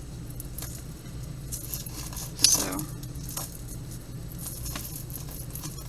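Small jewelry pieces, chains and beads, clicking and rattling lightly as fingers pick at a knotted tangle, with one sharper click about two and a half seconds in.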